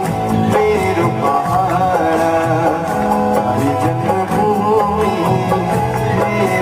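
Background music: a folk-style track with plucked strings over a steady accompaniment.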